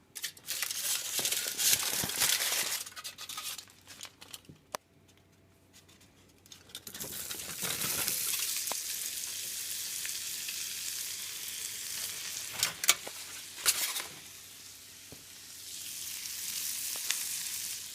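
Chicken apple sausage sizzling in melted butter in a frying pan: crackly at first, then dropping off for a couple of seconds before settling into a steady sizzle. A few sharp clicks come about two-thirds of the way through.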